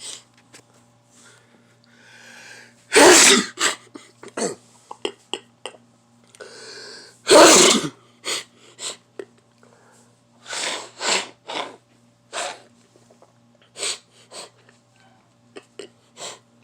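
A person sneezing: two loud sneezes about three and seven seconds in, each after a drawn-in breath, then a run of shorter, quieter bursts.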